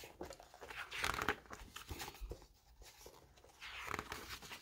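Paper pages of a hardcover picture book being turned by hand, rustling and sliding about a second in and again near the end.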